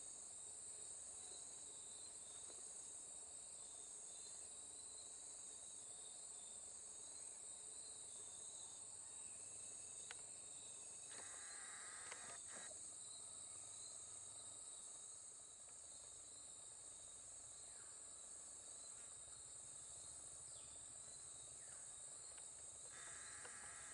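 Faint, steady high-pitched chorus of forest insects, pulsing about once a second, with a few brief chirps about halfway through.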